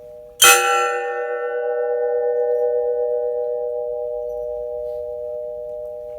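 A gas cylinder used as a bell, struck once about half a second in: a bright clang whose high overtones die away within a couple of seconds. A steady, long-sustained ring, already sounding before the strike, carries on and slowly fades.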